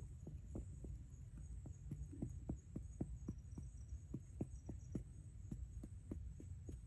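A steady run of short, dull knocks, about four a second, like repeated blows or strokes of hand work. A high, steady insect buzz with faint chirping sits behind them.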